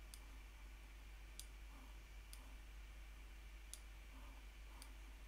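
Faint, scattered clicks of a computer mouse, about six in the few seconds, over near-silent room tone.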